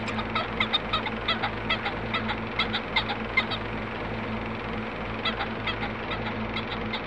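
A run of short, pitched bird calls, fowl such as geese or turkeys, repeating in two spells with a pause between, over a steady mechanical hum.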